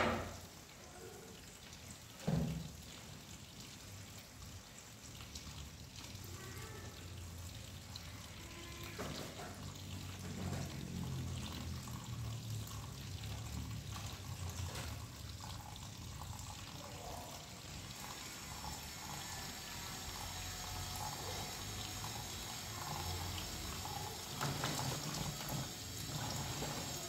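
Kitchen tap running in a steady stream into a plastic basin of water in the sink, with one loud knock about two seconds in.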